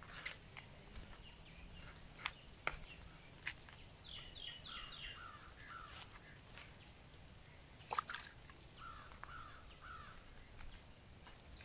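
Faint outdoor ambience with birds calling in short runs of repeated notes. Occasional sharp snaps and tears come from ripe jackfruit bulbs being pulled by hand from the fibrous flesh, the sharpest about eight seconds in.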